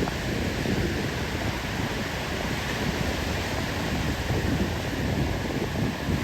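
Wind buffeting the microphone: a steady rush of noise with an uneven low rumble.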